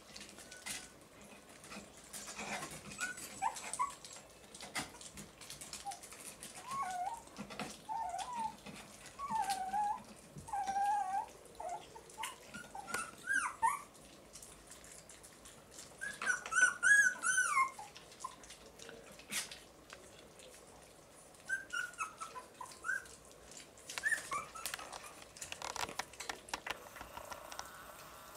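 Young puppies whimpering and squeaking in short, high, wavering cries, with a louder run of whines about two-thirds of the way through. Light clicks and scratches from paws on the wooden box wall come between the cries.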